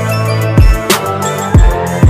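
Background music with a steady beat and deep kick-drum hits.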